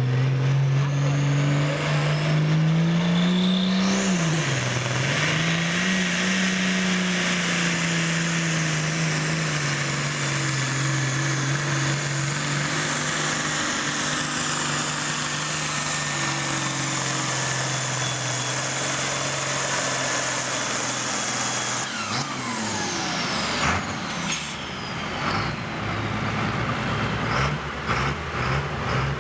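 Diesel pulling tractor at full throttle dragging a weight-transfer sled. The engine note climbs, dips once and holds steady under a high turbo whine. About 22 seconds in, the engine note and whine fall away as the pull ends, leaving a lower running engine and some clunks.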